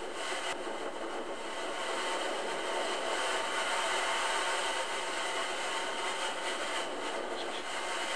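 Hurricane-force wind and driving rain, a steady rushing noise that barely changes in level.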